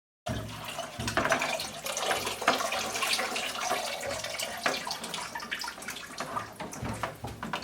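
Water running and splashing, with many small clicks and knocks of handling.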